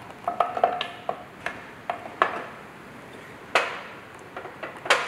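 Steel gearbox parts clinking and knocking on a steel workbench as the Ford Rocket gearbox's shafts are lifted out of the casing and set down. A cluster of clinks with a brief metallic ringing comes about half a second in, then single sharper knocks about two, three and a half and five seconds in.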